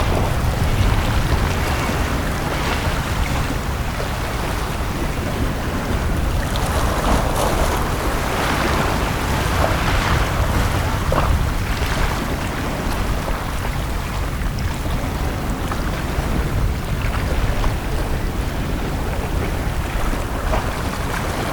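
Sea waves washing onto a beach, the wash swelling louder and brighter from about a third of the way in to past halfway, over a steady low rumble.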